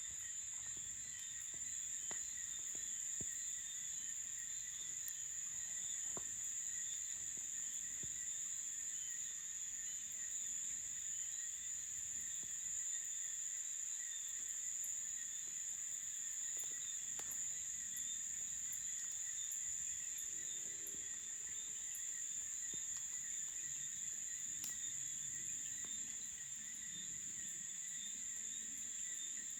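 Night chorus of crickets and other insects: one high, unbroken trill is the loudest sound, over lower pulsing calls. Faint scattered clicks are heard now and then.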